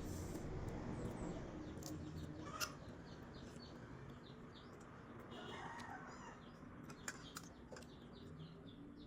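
Eating sounds of balut being eaten: a few sharp mouth clicks and smacks over a low steady hum, with faint bird chirping in the background.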